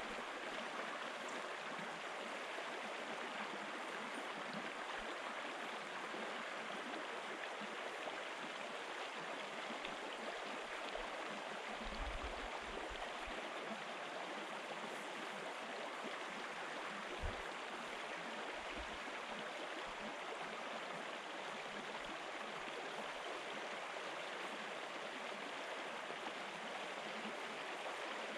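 Shallow river running over a stony riffle: a steady babbling rush of water. A few soft, low thumps come around the middle.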